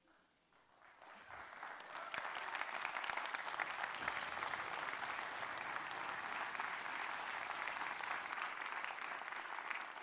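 Audience applauding. It swells over the first couple of seconds, holds steady, and tapers off near the end.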